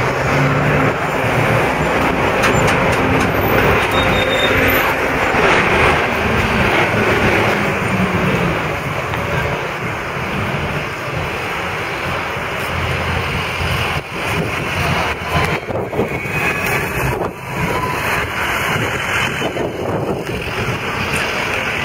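Busy city street traffic: cars and a city bus running close by, with a steady engine hum that fades out after several seconds.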